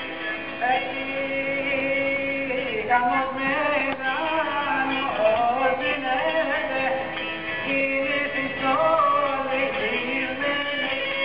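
Traditional Greek island folk music: a bowed string instrument playing a wavering, ornamented melody over steady held notes.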